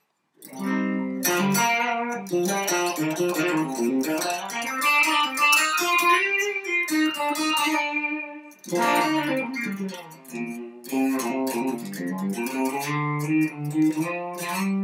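Home-built electric guitar played clean on its full humbucker setting, with picked notes and chords in short phrases and brief pauses about eight and ten seconds in.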